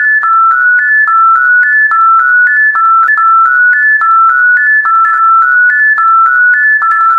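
A simple electronic tone melody: three short notes climbing in pitch, looped over and over at an even pace of about four notes a second.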